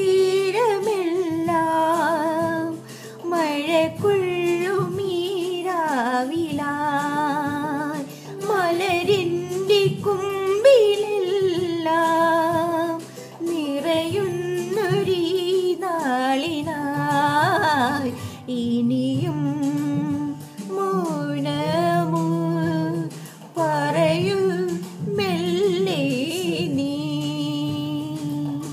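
A woman singing a slow Malayalam film song in phrases with a wavering vibrato, over the song's original recorded accompaniment.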